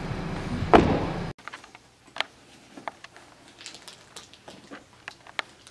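About a second of car-cabin road noise with a low hum and one sharp knock. It then cuts to faint, scattered small clicks and rustles as hands handle the harness and buckle of an infant car seat.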